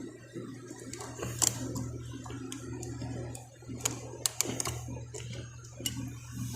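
Scattered light clicks and taps, several close together about four seconds in, over a steady low hum.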